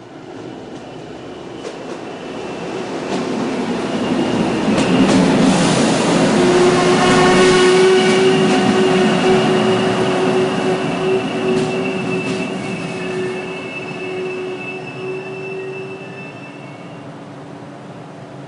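A train passing by: its rumble builds for about five seconds, is loudest around the middle and fades away toward the end. A long, steady squeal of the wheels on the rails runs through the second half, with a few sharp clicks along the way.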